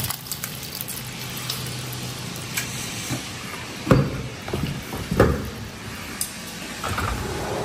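Leftover stew sizzling in a hot wok back on the stove, a steady hiss. A few sharp knocks of chopsticks and utensils against the bowl and pan, loudest about four and five seconds in.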